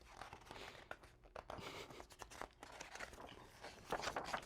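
Faint paper rustling and soft clicks, the pages of a picture book being handled and turned.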